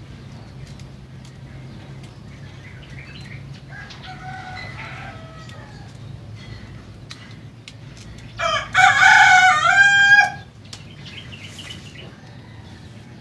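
A rooster crowing: a fainter crow about four seconds in, then a loud crow lasting about two seconds near the end, over a steady low hum.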